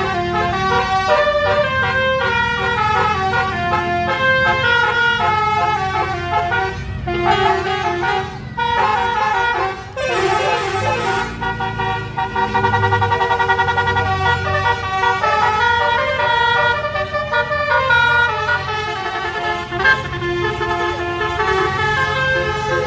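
Musical air horns playing a tune: held notes step up and down in pitch without a break. There is a brief rush of noise about ten seconds in.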